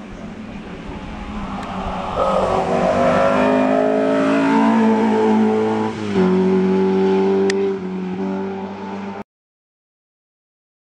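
Opel Kadett C Coupé hillclimb race car's eight-valve four-cylinder engine at high revs, its pitch climbing as it comes through the corner. About six seconds in the pitch drops abruptly at a gear change, then climbs again as the car accelerates away uphill. The engine fades off, and the sound cuts off suddenly about nine seconds in.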